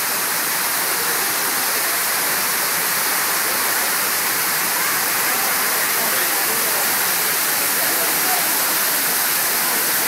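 Water pouring down the tall wall of a large man-made waterfall fountain: a steady, even rush.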